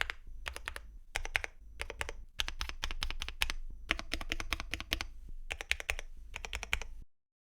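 Typing on a Weikav Lucky65 mechanical keyboard with factory-lubed Gateron Milky Yellow Pro linear switches and Cherry profile PBT keycaps: fast runs of keystrokes in short bursts with brief pauses between them. It stops about seven seconds in.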